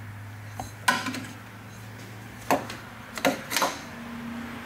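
Hands handling the distributor of an air-cooled VW engine: four sharp clicks and knocks of the cap, clips and parts, the loudest about a second in.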